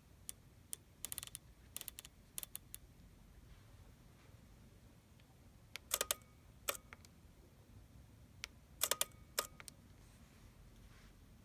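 Hasselblad X1D camera with its XCD 80mm f/1.9 lens working: light mechanical ticks and clicks from the lens and body in the first few seconds. Two louder bursts of several quick clicks follow, about 6 and 9 seconds in, each with a brief whine under it.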